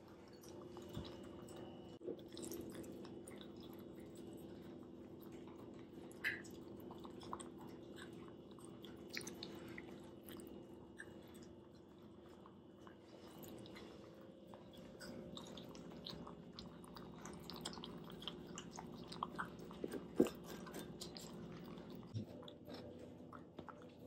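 Shiba Inu dogs eating, heard as faint, scattered chewing and smacking sounds that grow more frequent toward the end, over a steady low hum.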